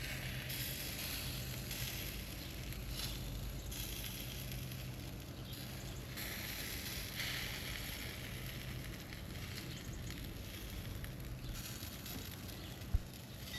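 Smashed burger patties sizzling on a charcoal grill, the hiss swelling and fading in waves, with one sharp click near the end.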